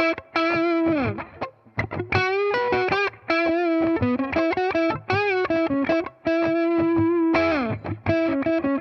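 Electric guitar played through a home-built BYOC effects pedal with a distorted tone: single-note lead phrases with string bends and vibrato, and two long slides down the neck, about a second in and near the end.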